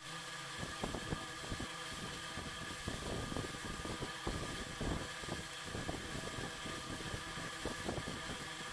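Steady mechanical hum and hiss with a few fixed tones, overlaid with irregular light taps and scratches of a fineliner pen drawing on paper.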